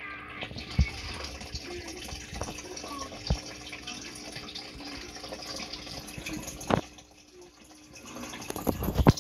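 Water trickling and splashing steadily in a small turtle tank, quieter near the end, with a few sharp knocks, the loudest just before the end.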